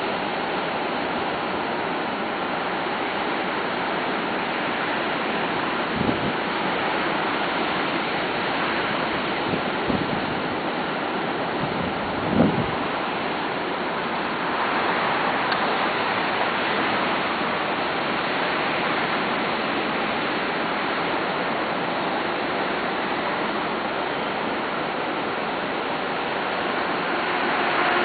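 Ocean surf breaking and washing onto the beach: a steady rush of noise, with a few brief low thumps, the strongest about halfway through.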